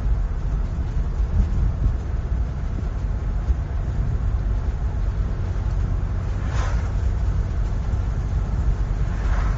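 Car driving on a road: a steady low rumble of engine and tyre noise, with two brief swells of rushing hiss, about two-thirds of the way in and again at the end.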